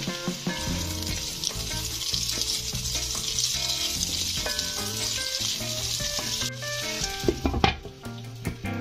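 Chopped red bell peppers sizzling in hot oil in a wok while being stirred with a wooden spatula. A few knocks of the spatula come near the end.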